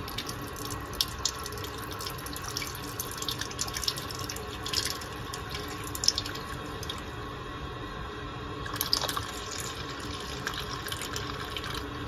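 Fresh water flushing the last descaling solution out of a tankless water heater, running from the flush hose into a bucket of solution with a steady trickle, bubbling and scattered small splashes.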